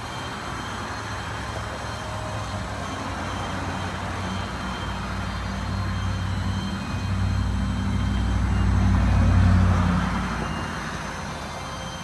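Motor vehicle passing by: a low engine rumble that builds, is loudest about nine and a half seconds in, then fades away.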